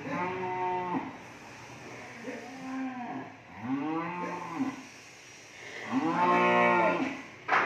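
Cattle mooing: four drawn-out calls, the last one the longest and loudest. A sharp knock comes just before the end.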